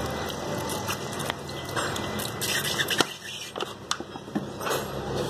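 Car AC compressor being handled in a metal basin of washing liquid: wet scraping and squishing, with a few sharp clicks of metal against the basin about three and four seconds in.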